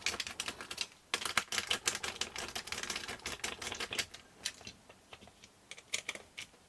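Rapid, irregular clicks and taps of hard plastic parts and small screws being handled on a workbench, thick for the first few seconds and sparser after.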